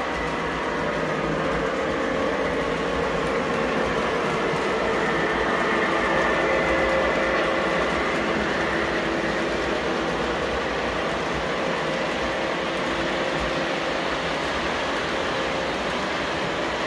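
Model passenger train running along its track: a steady whir and rumble from the locomotive and cars rolling on the rails.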